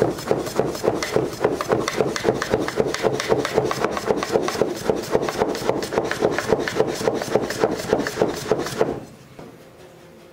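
Soba-cutting knife chopping folded buckwheat dough into noodles against a wooden guide board: a fast, even run of knocks of the blade on the wooden cutting board, about five a second. The chopping stops about a second before the end.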